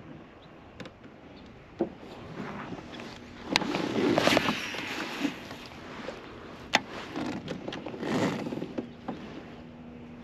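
Knocks, clicks and rustling from a fishing kayak and its gear being handled, with two longer swishing washes of noise, the louder about four seconds in and a shorter one about eight seconds in.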